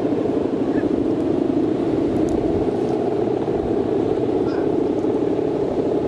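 The bow hummer (guwangan) on a big Balinese bebean kite droning steadily as the kite rides strong wind. The drone is loud and even, with a buzzing edge.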